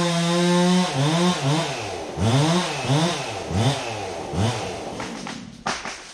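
Gas chainsaw running at high revs, then its pitch repeatedly dropping and climbing again, about one to two times a second, as it is throttled or loaded in a cut. It eases off near the end.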